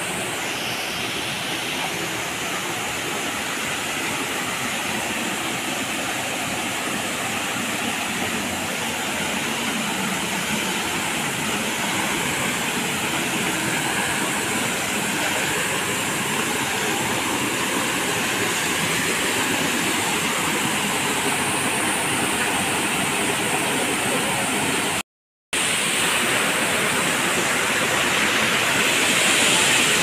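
Steady rush of falling water from the Bara Bakhra waterfall, an even hiss-like roar that cuts out for a moment near the end.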